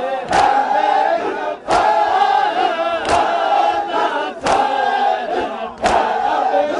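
A crowd of male mourners chanting in unison, punctuated by a loud collective chest-beat (matam) about every 1.4 seconds, five in all. The hands strike the chests together in a steady slow rhythm.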